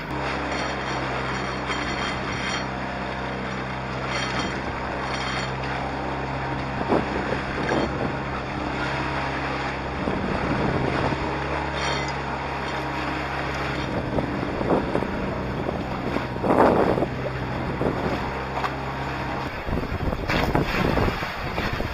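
Wind buffeting the microphone and water rushing and splashing against the hulls of a small trimaran sailing through steep, choppy waves, with a few louder wave slaps. A steady low hum runs underneath and stops suddenly about nineteen seconds in.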